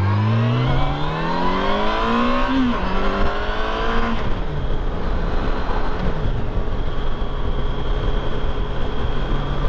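Yamaha FJR1300's inline-four engine accelerating through the gears, rising in pitch and dropping back at each upshift, then settling to a steady cruise from about five seconds in over a constant rush of wind and road noise.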